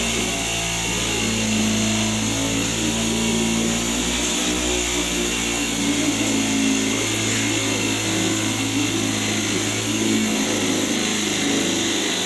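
Corded electric metal shear running steadily as it cuts along a thin sheet of metal, a continuous motor whine with hiss.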